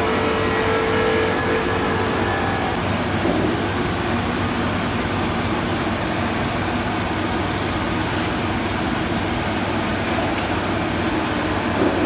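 Glass washing machine running, its roller conveyor turning: a steady mechanical hum and rush of noise, with a whirring tone that fades out about two and a half seconds in.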